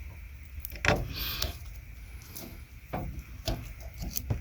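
Small clicks and a short rustle of wiring and a plastic connector being handled, the loudest click about a second in.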